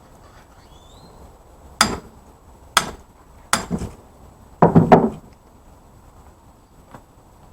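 Hand tool struck against the grinder pump's electric motor while the copper windings are knocked out for scrap: a few single sharp knocks, then a quick flurry of louder blows about five seconds in, and a light tap near the end.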